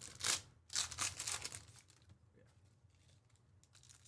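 Plastic card-pack wrapping being torn and crinkled: two short crackling rips in the first second or so, then fainter crinkling.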